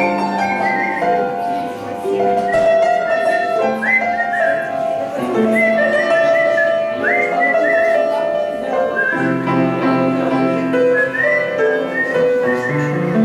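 Grand piano playing a slow ballad with a man whistling the melody over it, his notes sliding up into pitch.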